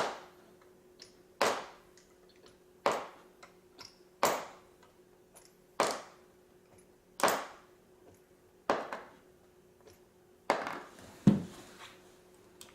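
Metal sockets clinking one at a time as they are picked out and set down, a sharp ringing clink about every second and a half, nine in all.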